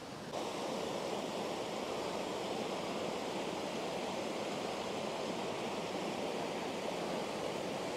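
Mountain creek running over rocks: a steady rush of flowing water that comes up about a third of a second in.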